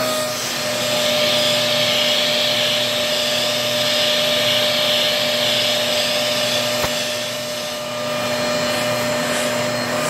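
Vacuum cleaner running steadily with a round nozzle drawn through a cat's fur, a steady hum under an airflow hiss that swells and eases a little. One faint tick about seven seconds in.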